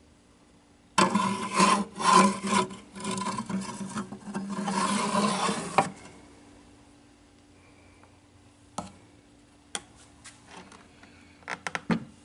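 Kleinschmidt WPE3 Wheatstone tape perforator mechanism running in a loud, rasping mechanical chatter for about five seconds, then stopping. A few separate sharp clicks follow near the end.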